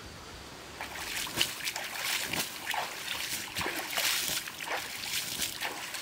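Water poured from above onto the ashes of a burnt-out campfire, dousing it and splashing and spattering on the ash and ground, starting about a second in.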